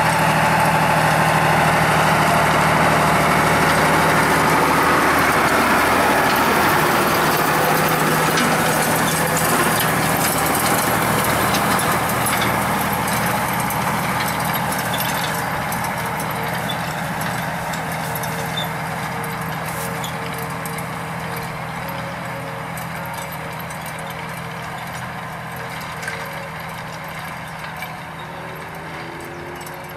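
Mercedes-Benz Unimog diesel engine running steadily while pulling a rotary hay tedder. It fades gradually as the machine moves away.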